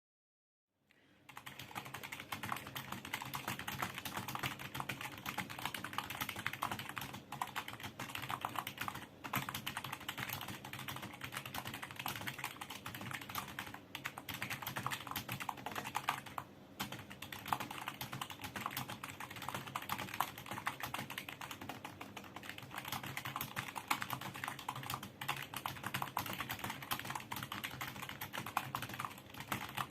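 Continuous fast typing on a Fantech Fighter TKL II (K613) keyboard: a dense stream of key clicks starting about a second in, with a few brief pauses.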